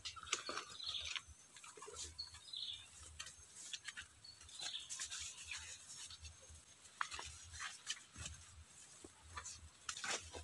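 Dry leaf litter and twigs crackling and rustling in irregular clicks as someone works by hand on the forest floor, with birds chirping now and then.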